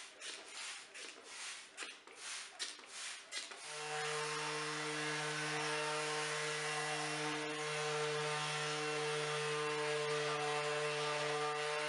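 A few uneven rubbing strokes, then about four seconds in a Makita random orbit sander starts and runs steadily: an even motor hum under the hiss of its 160–300 grit paper sanding the epoxy-inlaid wooden board.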